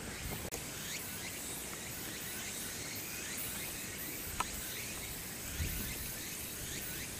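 Outdoor ambience: a steady high insect drone with many short, falling chirps throughout, and one sharp click about four and a half seconds in.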